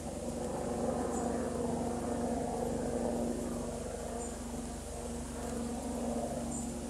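Steady droning hum of a motor or engine, made of several held tones, with a few faint high chirps now and then.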